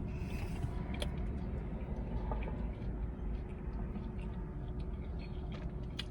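Chewing and small mouth clicks from eating a crispy pizza puff, scattered over a steady low hum.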